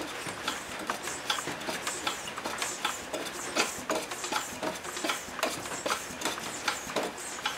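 Irregular light clicks and ticks, two or three a second, as the propeller on a Husqvarna 268K cut-off saw engine converted for an R/C airplane is handled and turned by hand; the engine is not running.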